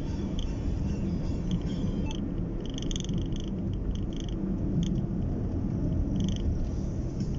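Honda Brio driving downhill, with a steady low rumble of engine and road noise in the cabin. Short high chirps come and go irregularly over it, mostly from about two seconds in.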